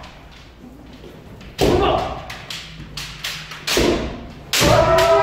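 Kendo sparring: sharp knocks of bamboo shinai strikes and stamping footwork on a wooden floor, with kendoka shouting kiai. A long kiai shout starts about four and a half seconds in.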